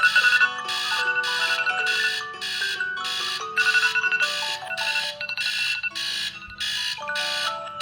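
Smartphone alarm tone playing: a bright melodic chime pattern of quick, evenly pulsed notes over a steady low held note, repeating.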